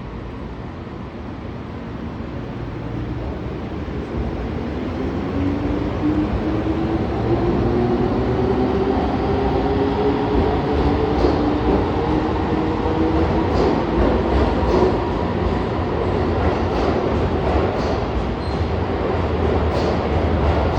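Keihan electric train pulling away and accelerating: its traction motors whine steadily higher in pitch over rail rumble that grows louder, and in the second half the wheels tick over rail joints.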